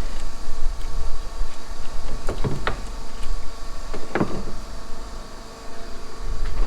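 Diesel being pumped into a combine's fuel tank: a steady machine hum under a low rumble, with a few sharp knocks about two and a half seconds in and again around four seconds in.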